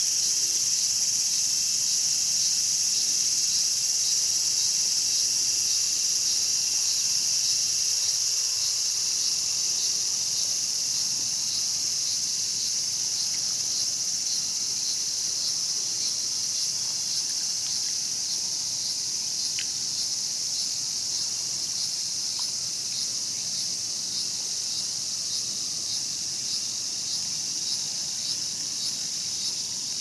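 Cicadas buzzing in a steady chorus: a continuous high-pitched drone with a fine, fast pulse, easing off slightly in loudness over time.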